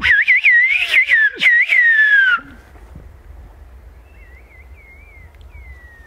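Whistled Turkish 'bird language' (kuş dili): a man whistles loudly through cupped hands, a quick run of high, rising-and-falling notes that ends in a long falling note after about two and a half seconds. About four seconds in, a much fainter whistled phrase answers from afar, ending in a long slide down.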